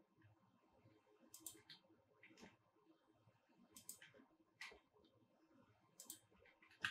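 Faint clicks of a computer mouse and keyboard, in small groups of two or three about every second or so, as copies are pasted and placed one after another.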